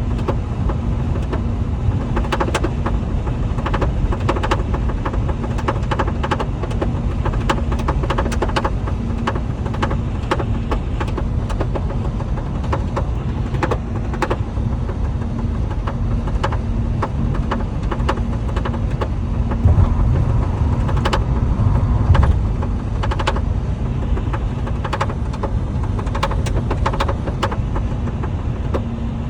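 Lincoln MKZ rattling on the passenger side: irregular short clicks and knocks, several a second at times, over the car's steady low rumble.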